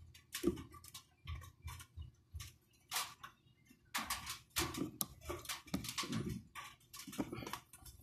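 Irregular small clicks and taps of a precision screwdriver and fingertips working tiny screws and parts on a phone's plastic midframe, with a few short low sounds in between.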